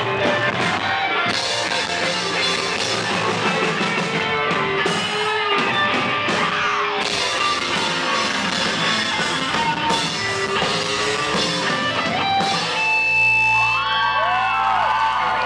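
Live rock band playing: electric guitars, bass and drum kit together. About twelve and a half seconds in, the drums stop, leaving held guitar notes with sliding, bending pitches.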